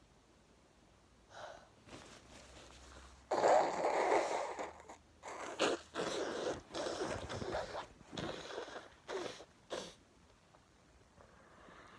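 A person's sneezing fit, brought on by chhinkni sneezing powder on top of a head cold. About three seconds in comes a run of sudden, noisy nasal bursts, the last few short and sharp.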